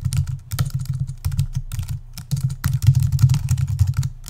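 Computer keyboard being typed on: quick runs of key clicks with short pauses between them as a title is entered.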